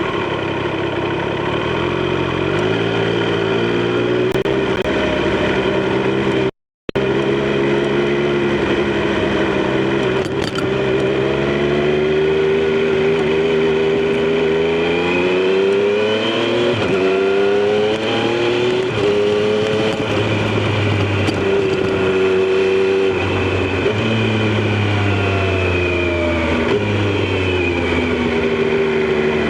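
Triumph Street Triple RS inline three-cylinder engine and exhaust under way, heard from the rider's position. The revs climb and fall again and again through the gears, with steadier stretches in between. The sound cuts out for a moment about seven seconds in.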